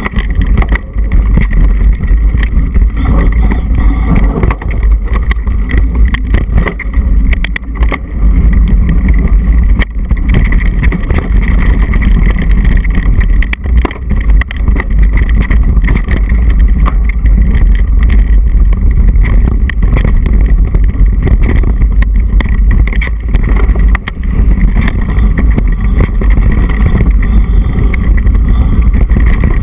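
Wind buffeting an action camera's microphone during a fast mountain-bike descent on a dirt trail, a steady deep rumble, with frequent knocks and rattles as the bike goes over bumps.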